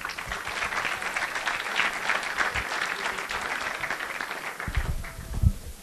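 Audience applauding in a hall, a dense patter of many hands that dies away about five seconds in, followed by a few low thumps near the end.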